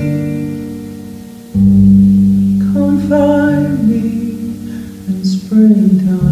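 Acoustic guitar playing slow chords, each struck and left to ring and fade, with a woman's voice singing briefly in the middle.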